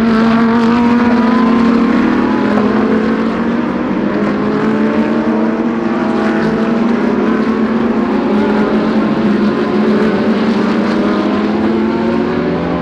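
GT3 race cars at speed, several engine notes overlapping and slowly falling in pitch, with one rising again near the end.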